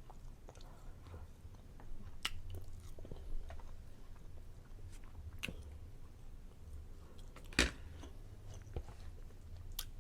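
A person chewing food close to the microphone, with scattered wet mouth clicks and one sharper click about seven and a half seconds in.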